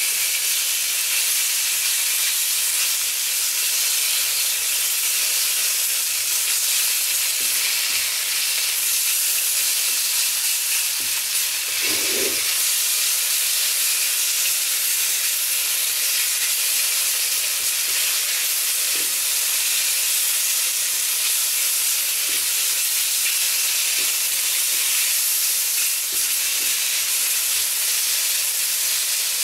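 Pork frying in a hot cast iron wok, a steady sizzle, with a brief lower sound about twelve seconds in.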